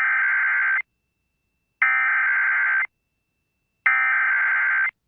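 Emergency Alert System SAME header: three bursts of buzzing digital data tones, each about a second long and about a second apart. This is the coded header that opens a tornado warning.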